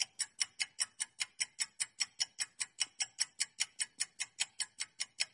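Quiz countdown timer's clock-tick sound effect: a fast, even ticking at about five ticks a second while the answer time runs down.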